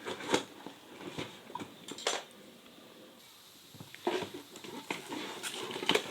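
Knife cutting and scraping through the plastic wrapping of a delivery package, with scattered short rustles and scrapes, a lull in the middle, and a busier stretch of scraping near the end.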